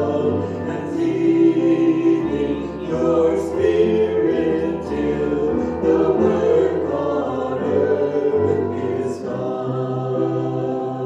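A choir singing in sustained phrases over held bass notes that change every second or two.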